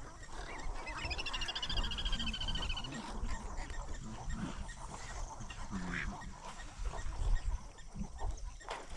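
Wild animal calls: a rapid pulsed call about a second in, lasting nearly two seconds, then shorter scattered calls over low rumbling.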